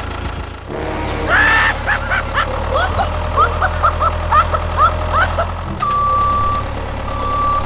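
A vehicle engine running with a steady low hum, with a string of short rising chirps through the middle, then a reversing alarm beeping in long on-off tones from about six seconds in.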